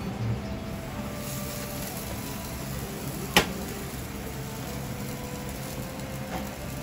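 Steady kitchen background hum with one sharp clack about three and a half seconds in.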